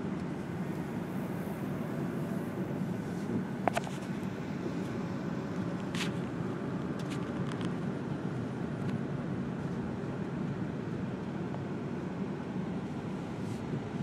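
Steady road and engine noise heard inside a moving car's cabin, with two sharp clicks, the louder one a little under four seconds in and another about two seconds later.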